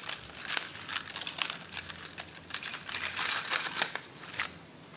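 Light metallic clinking and jangling of small metal objects, as keys or loose hand tools make, busiest from about two and a half to four seconds in.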